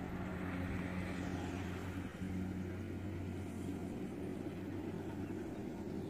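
Kubota DC-70G Plus combine harvester's diesel engine running steadily while harvesting rice, a low even hum.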